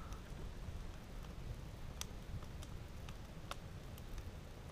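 Wood campfire burning and crackling, with scattered sharp pops at irregular intervals over a low steady rumble.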